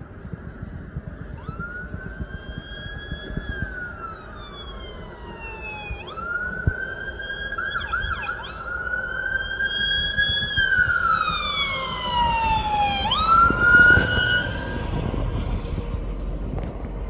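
Emergency vehicle siren wailing, its pitch rising, holding and sliding back down in slow cycles, with a quick warbling wobble about eight seconds in. Low engine and road noise swells underneath as the vehicle draws nearer.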